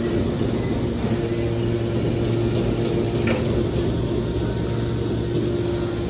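Hydraulic scrap metal baler's power unit running with a steady hum, with a brief click about three seconds in.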